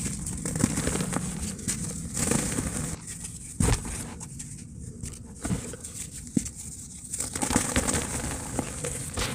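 Dry cement lumps crumbling in a tub: an uneven run of soft crackling and crunching, with a few sharper knocks, the clearest about three and a half seconds in.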